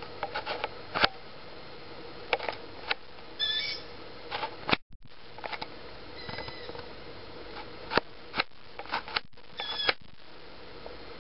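A young owl in a tree giving short, high calls, two stronger ones about three and a half seconds apart and nearer ten seconds in, with a fainter call between. Sharp clicks and taps come throughout and are the loudest sounds.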